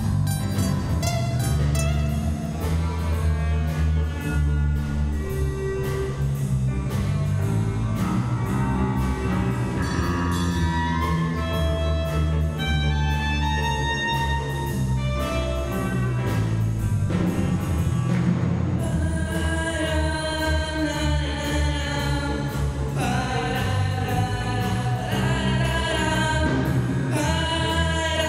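School orchestra with drum kit playing an upbeat arrangement over a steady beat; about two-thirds of the way through the full ensemble comes in and the sound turns fuller and brighter.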